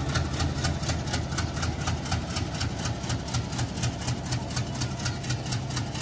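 Diesel locomotive engine working under power as a passenger train pulls out, a steady low drone with a fast, even beat of about five pulses a second.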